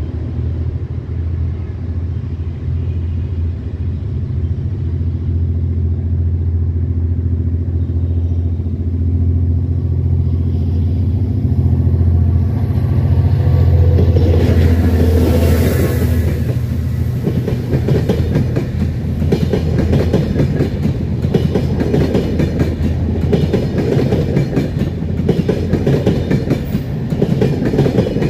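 A passenger train passes close by. First comes the steady low drone of the diesel locomotive's engine as it approaches, growing louder, then from about two-thirds in the coaches roll past with a dense rhythmic clatter of wheels on the rails.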